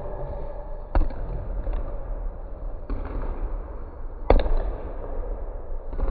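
Scattered basketball thuds echoing in a gymnasium: four separate sharp impacts at uneven spacing, the loudest a little past four seconds in, over a steady gym background.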